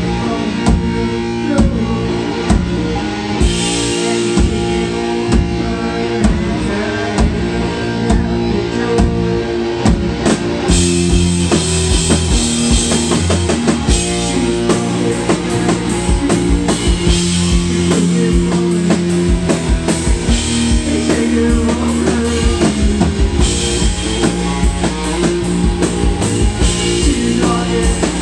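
Rock band playing live: held guitar chords over a drum kit, with the cymbals coming in much harder about ten seconds in.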